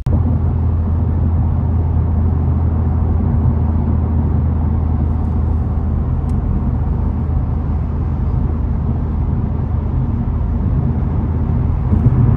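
Steady in-cabin road and engine noise of a Honda Civic Type R cruising at highway speed, with a strong low drone under the tyre and road rush.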